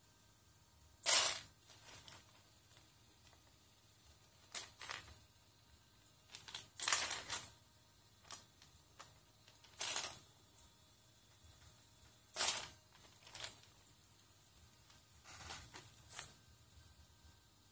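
Loose plastic Lego bricks clattering and shifting under the feet of a servo-driven legged robot walking over the pile: about ten short, sharp rattles, irregular and a second or two apart.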